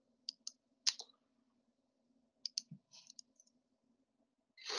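Scattered short clicks from a computer mouse and keyboard, a few small groups of them over the first three seconds or so, over a faint steady hum. A breathy hiss near the end, just before speech resumes.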